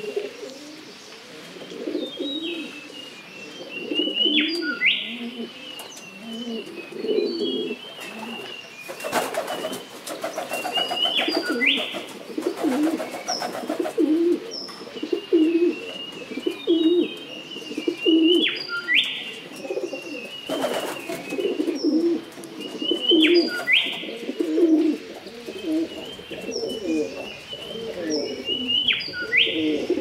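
Common wood pigeon cooing in low, repeated phrases, with songbirds chirping and calling higher up over it.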